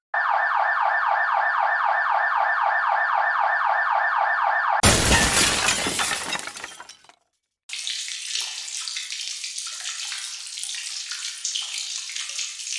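A string of sound effects. First comes a fast-repeating electronic alarm tone like a siren, about six pulses a second. About five seconds in it gives way to a loud noisy crash that dies away over two seconds, then after a short gap comes a steady crackling, rushing noise.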